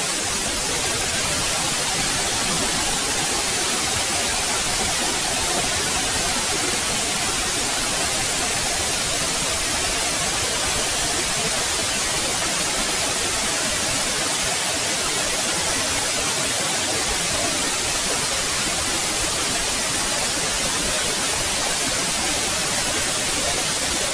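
Steady white noise: an even hiss spread across all pitches, strongest in the high end.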